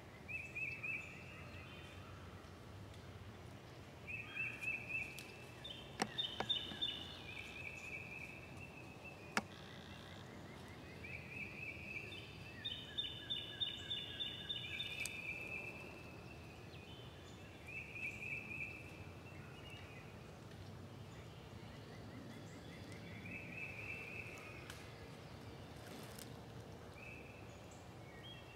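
Several songbirds singing: short rapid trills of about a second each, repeating and overlapping at different pitches, with a couple of sharp clicks in between.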